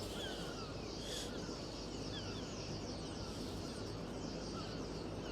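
A flock of starlings chattering: many short overlapping whistles and chirps, over a steady low background hum.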